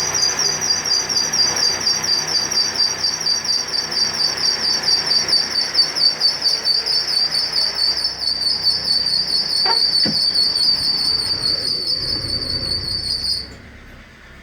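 Car engine's accessory drive belt (fan belt) squeaking in a loud, high-pitched, rapidly pulsing chirp over the idling engine, then cutting off suddenly near the end. The owner puts it down to a squeaky belt, no cause for alarm.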